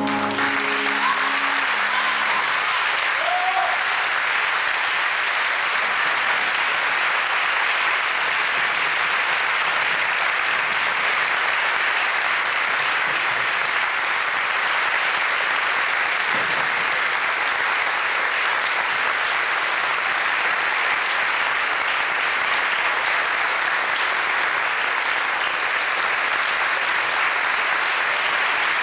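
Audience applauding steadily, with the last notes of the music dying away in the first couple of seconds.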